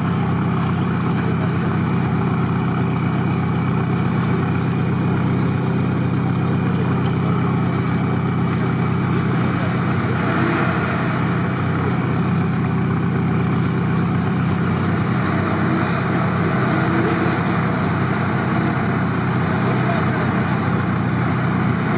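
Off-road 4x4's engine idling steadily in gear with no throttle, the vehicle bogged down in a swamp.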